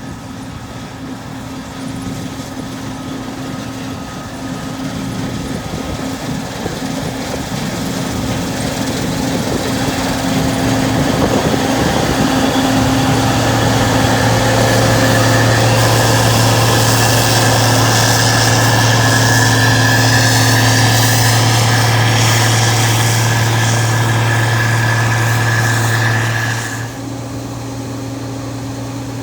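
A farm vehicle's engine running steadily. It grows louder over the first dozen seconds, holds a strong steady hum, and drops back suddenly about 27 seconds in.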